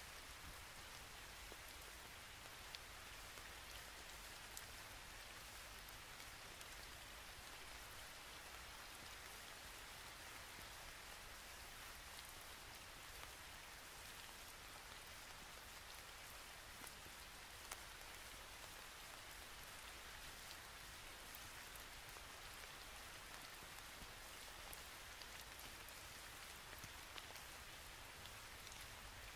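Near silence: a faint, steady hiss with a few tiny ticks scattered through it.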